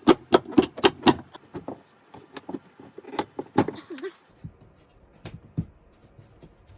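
A fast run of sharp knocks, about four a second, then scattered taps and clicks, as an old plastic electrical box nailed to wooden blocking in the ceiling is knocked and worked loose.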